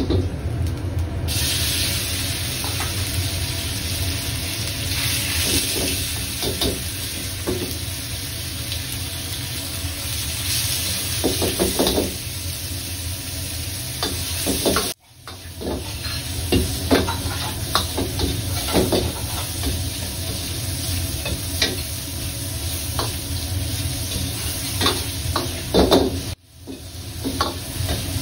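Meat and okra stir-frying in hot oil: a steady sizzle with frequent scrapes and clicks of a spatula against the pan. The sound breaks off suddenly twice, about halfway through and near the end.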